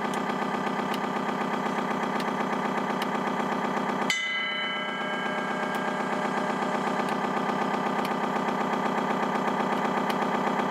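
Simulated tugboat diesel engine idling steadily with a rapid pulsing beat, played by an RC model's sound-effects module. About four seconds in, a click and a bell-like ding ring out and fade.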